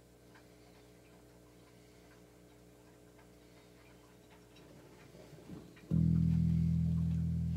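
Electric bass guitar played with the fingers: faint string and fret clicks over low, steady ringing for about six seconds, then a loud, low note struck near the end and held ringing.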